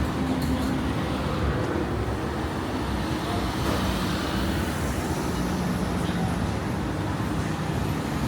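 City street ambience: steady road traffic noise, with a vehicle engine humming past in the second half.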